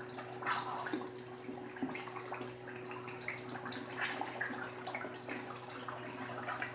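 Beef karahi sizzling and bubbling in a steel karahi while a wooden spoon stirs and scrapes through the thick, oily curry, as the masala is fried down near the end of cooking. A faint steady hum runs underneath.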